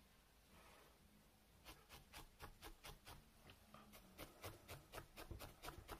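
Felting needle stabbing repeatedly into wool, working the cactus's base into the felted pot base: faint quick pokes, about three or four a second, starting a couple of seconds in.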